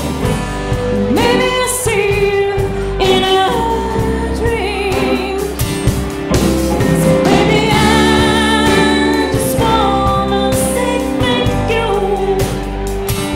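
Live band music: a woman sings lead over acoustic and electric guitars, keyboard and drums, holding one long wavering note near the middle.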